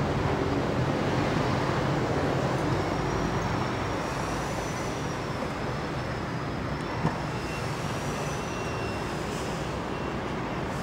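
Steady roadway traffic noise: a continuous, even rush with no distinct events, with a faint high wavering tone through the middle and a single soft click about seven seconds in.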